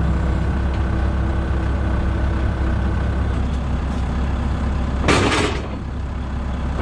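Heavy diesel truck engine idling steadily while the air system builds pressure, with a short burst of compressed-air hiss about five seconds in.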